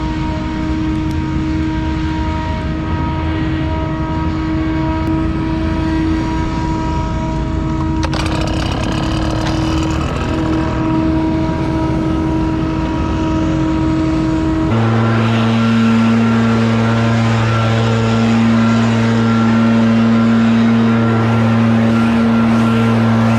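Scag Windstorm stand-on blower's engine running steadily at working speed. Its sound changes abruptly about fifteen seconds in.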